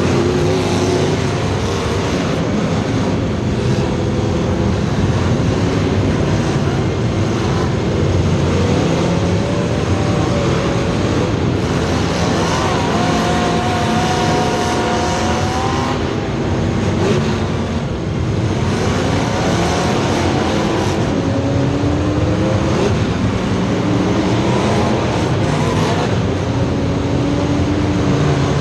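Several race car engines running together on track, their pitch rising and falling as they accelerate and lift off, overlapping one another.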